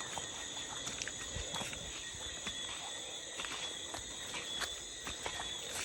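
Steady chorus of night insects trilling at two high pitches, with scattered faint clicks.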